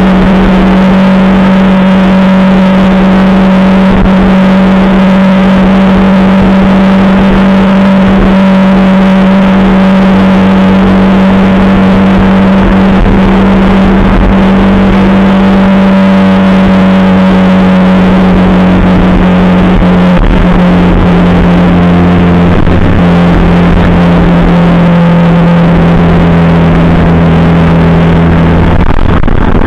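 Motorcycle engine running at a steady cruising speed, heard from on board with wind and road noise. The pitch holds nearly level, with a short dip and break near the end.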